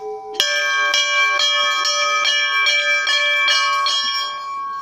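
A temple bell struck over and over, about two and a half strikes a second, with a bright metallic ring. The strikes stop near the end and the bell rings on, fading.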